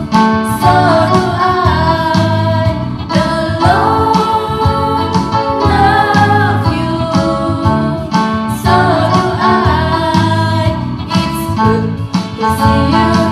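Children's Christian action song: women's voices singing over an instrumental backing track with a steady beat.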